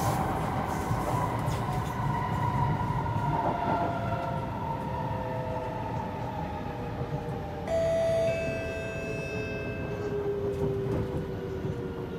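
Kawasaki C751B metro train heard from inside the car, running with a rumble from the wheels and a motor whine that falls slowly in pitch as it slows. About two-thirds through, a steady high-pitched tone starts suddenly, is loudest for about half a second, then fades.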